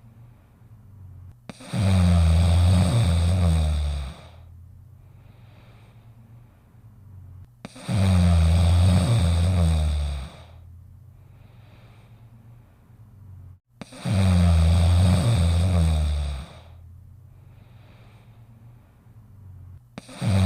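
Snoring: four loud snores, each about two and a half seconds long, evenly spaced about six seconds apart, with faint breaths between them.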